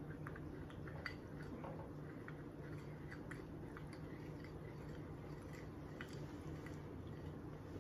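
A plastic spoon stirring a baking soda and vinegar mixture in a small bowl: faint, irregular soft clicks and squishes, over a low steady hum.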